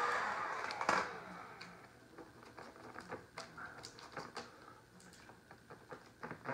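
A heat gun's steady blowing dies away in the first second, followed by a sharp click. After that come scattered light clicks and crinkles of adhesive vinyl being pressed down and trimmed with a utility knife along a table-top edge.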